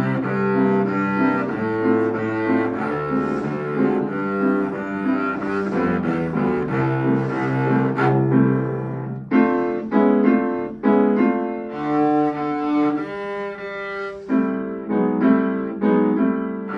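A cello bowed by a young beginner, accompanied by a grand piano. Long held low notes come first; from about halfway the music turns to short, sharply struck notes and chords.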